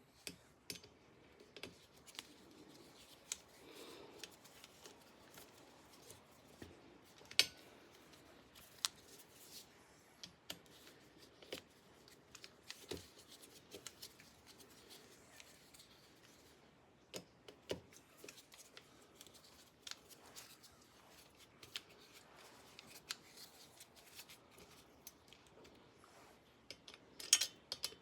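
Scattered small metallic clicks and clinks of parts and a hand tool: the new disc brake rotor and its Torx mounting screws being fitted to the wheel hub. A sharper click about 7 seconds in and a cluster of them near the end.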